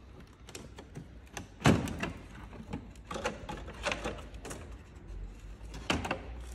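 Plastic carbon-look front grille of a Mk5 Golf GTI being pushed and clipped into the front bumper: a series of sharp plastic clicks and knocks, the loudest about a second and a half in.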